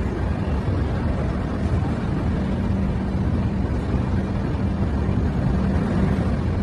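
Steady rumble of the Puri–Howrah Shatabdi Express running on the track: the coach's wheels rolling over the rails, with the strongest part low down and no let-up.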